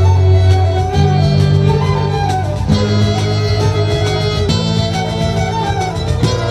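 Folk band playing a tune live: fiddles over saxophones, with a cajón and a djembe keeping the beat. Low held notes underneath change about every one and a half to two seconds.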